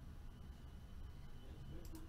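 Quiet room tone: a low steady hum and faint hiss between speech, with one brief click near the end.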